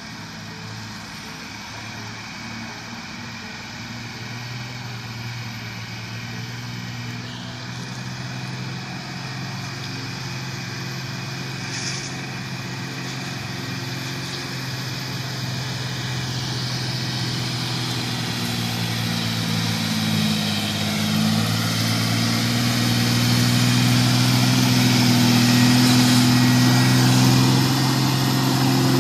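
Ashok Leyland 4x4 borewell drilling rig truck's diesel engine running under load as it drives off-road, growing steadily louder as it comes closer.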